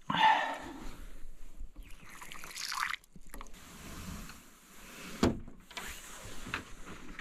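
Rustling and scraping as someone enters through a wooden door with glass panes, with one sharp knock about five seconds in.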